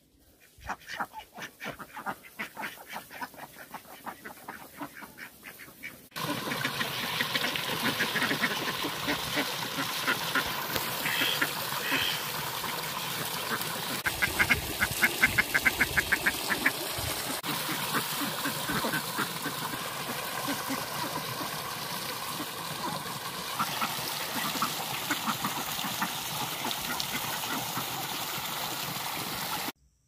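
A flock of domestic Indian Runner ducks quacking. About six seconds in, the sound jumps to a louder, busier chorus of many ducks over a steady hiss, with a fast run of rapid quacks about halfway through; it cuts off suddenly at the very end.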